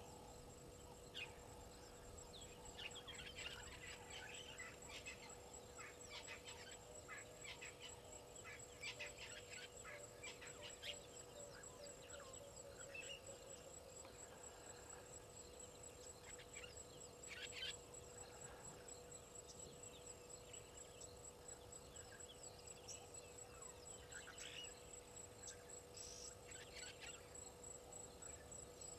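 Faint bird calls and chirps, busiest in the first half and scattered after, over a steady high pulsing trill.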